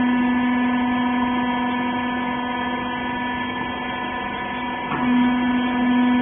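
Hydraulic power unit of a rag baler running: a steady machine hum with a strong low tone. About five seconds in, the tone falters briefly, then comes back stronger.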